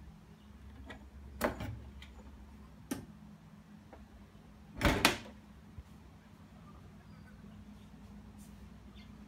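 A kitchen dishwasher's door is unlatched with a sharp click and let down open, then pushed back up and latched with a loud double thump.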